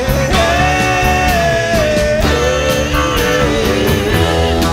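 Live rock band music with electric guitar and drums; the melody holds and bends its notes.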